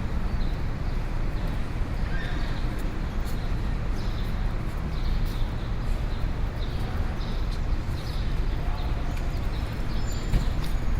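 City street ambience: a steady low rumble of traffic with short, sharp clicks repeating irregularly on the pavement.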